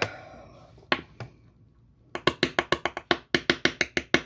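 A hot sauce bottle being shaken and tapped to work thick sauce out onto a spoon: a couple of light knocks about a second in, then from about halfway a rapid, even run of sharp taps, about seven a second.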